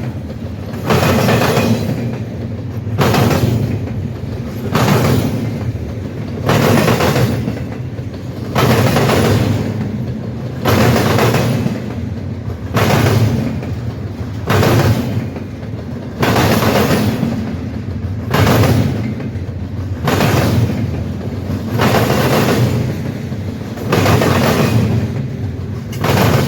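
Railroad cars rolling over a rail diamond crossing: loud clatter as each car's wheels hit the crossing, repeating about every two seconds, over a steady low rumble.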